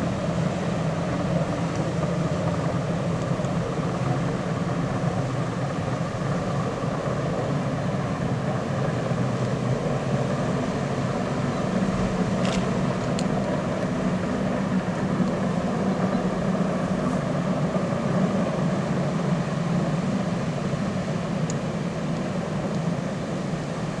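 Steady low drone of a passing car ferry's engines.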